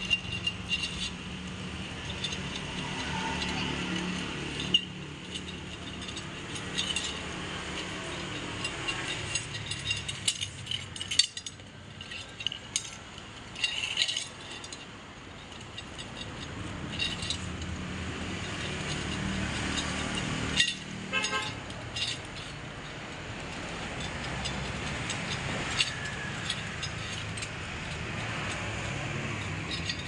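Loose steel spokes and spoke nipples clinking and rattling against each other and the rim as a spoked motorcycle wheel is laced by hand, in irregular sharp clicks.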